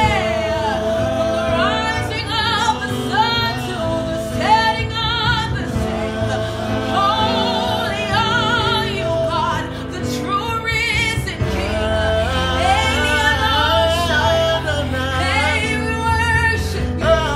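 Live gospel worship music: several voices, women's and a man's, singing with vibrato over held keyboard chords. A deeper bass comes in about two-thirds of the way through.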